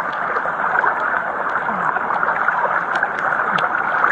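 Steady rush of fast-flowing floodwater and heavy rain, with a few sharp ticks scattered through it.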